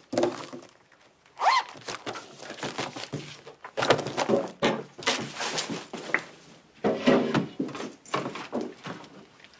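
Packing up at a desk: a pencil case zipped shut, then books closed and gathered and a bag picked up, in a run of rustles, clicks and soft thumps.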